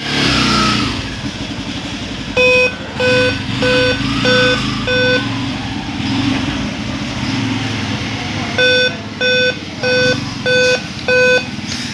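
Dell Core i3 laptop sounding its power-on error beep code with no display: two rounds of five short, even, mid-pitched beeps about a second apart, over a steady background hiss and hum. On Dell laptops a five-beep code marks a real-time-clock (CMOS battery) power failure.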